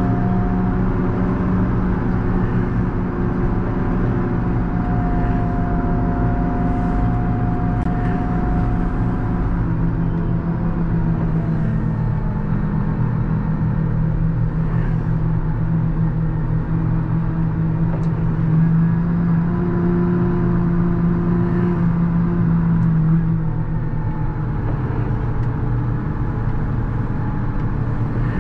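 JCB Fastrac 4220 tractor's diesel engine running steadily while the tractor pushes a front snow plow. Its note rises slightly about twelve seconds in and eases a little a few seconds before the end.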